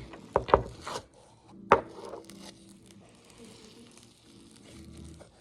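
Slime being taken out of its plastic container and packaging: a few sharp plastic clicks and knocks in the first two seconds, then soft crinkling and rustling.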